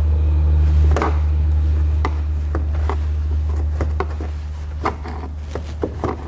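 Flat-bladed screwdriver twisting and prying plastic push-pin clips out of a plastic engine-bay cover: a series of short plastic clicks and taps, the loudest about a second in, over a steady low hum.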